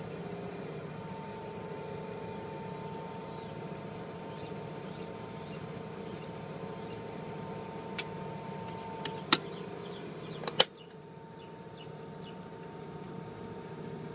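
Boat's onboard generator running steadily under load, powering an AC unit, refrigerator and water heater: a low, even hum with a thin high whine over it. A few sharp clicks come about eight to ten and a half seconds in, the last one the loudest, after which the sound turns quieter and the whine stops.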